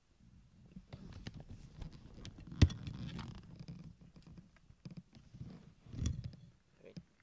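Domestic cat purring close to the microphone, a rough low rumble that fades out about four seconds in and returns briefly near the end, mixed with rustling and light bumps as the cat moves. A single sharp knock about two and a half seconds in is the loudest sound.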